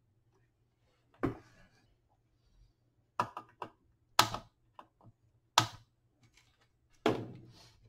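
Sharp, irregular clicks and knocks, about eight in all, of a circuit board and small parts being handled on a hard workbench during capacitor replacement. The last knock rings on briefly.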